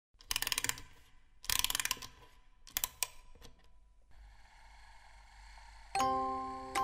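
A wind-up music box being wound: three short bursts of fast ratcheting clicks from its key. About six seconds in it starts to play, with its first plucked comb notes ringing out.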